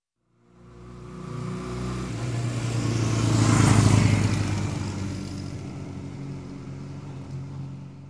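Motorcycle engine driving past: it fades in, is loudest about four seconds in, then fades away.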